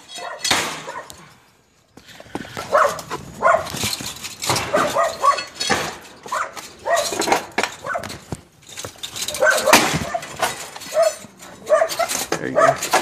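A dog barking repeatedly in short bursts, with scattered sharp knocks and scrapes.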